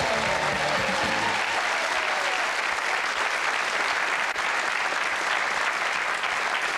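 Studio audience applauding steadily, with the tail of a short musical sting that ends about a second and a half in.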